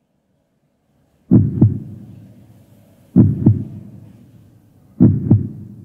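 Heartbeat sound effect: three slow double thumps, about two seconds apart, starting about a second in, each fading away after the second beat.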